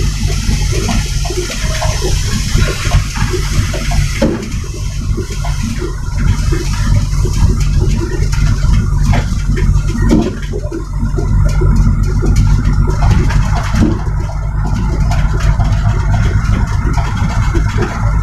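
Trailer truck's diesel engine running, heard from inside the cab. A rushing hiss stops about four seconds in, and rattling clicks follow.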